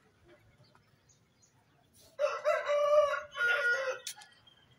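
Indian peafowl giving its loud call: two cries in a row about two seconds in, each held on a flat pitch with strong overtones.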